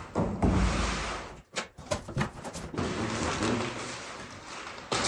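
Large cardboard shipping box being opened by hand: a scraping rustle, then a quick run of sharp knocks and rips as the flaps come open, followed by crumpled packing paper rustling as it is pulled out.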